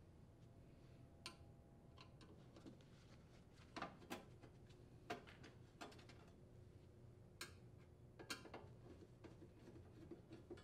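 Faint, irregular clicks and taps of a Phillips screwdriver and screws against a sheet-metal control box cover as the screws are backed out. About a dozen light ticks, scattered unevenly.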